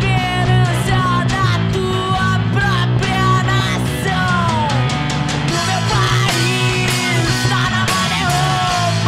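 A rock band's song: a sung vocal line with sliding pitches over guitar, bass and drums, at a steady loud level.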